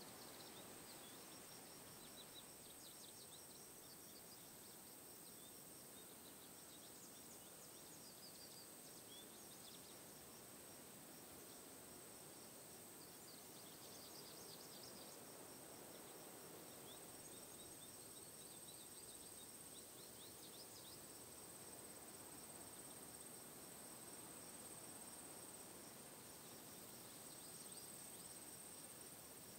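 Near silence with faint crickets chirping in short, scattered runs.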